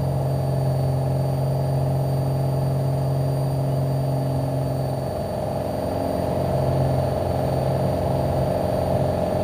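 Piper Warrior's four-cylinder Lycoming engine idling steadily while the plane holds short of the runway, heard from inside the cabin. Its drone wavers a little about halfway through.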